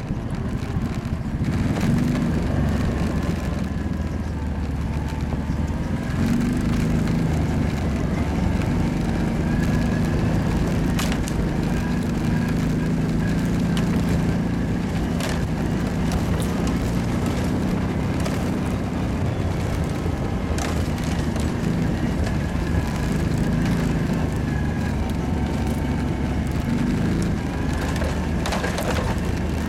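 Kawasaki quad's engine running while riding, its note shifting up and down with the throttle. A few sharp knocks come through along the way.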